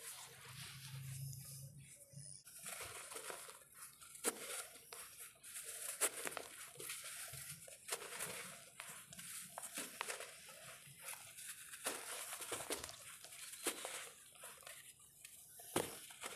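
Dry sand-cement lumps crumbling between the hands: a continuous gritty hiss of powder pouring, broken by sharp cracks every second or two as chunks snap apart.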